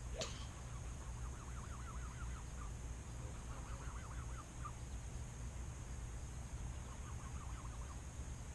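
Faint bird calls: a sharp chirp just after the start, then three short runs of rapid repeated notes, over a steady low rumble.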